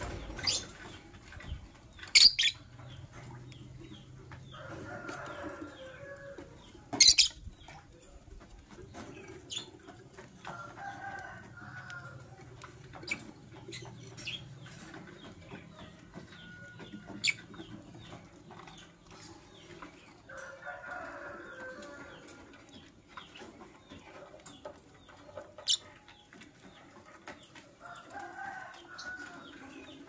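Caged lovebirds giving short, sharp chirps: three loud ones in the first seven seconds, then fainter ones scattered throughout. A lower sound about a second and a half long recurs four times in the background, roughly every eight seconds.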